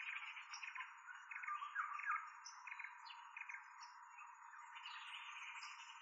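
Tropical forest birds chirping and calling in a dense mixed chorus, with a few louder short calls about two seconds in and a thin steady high whine underneath.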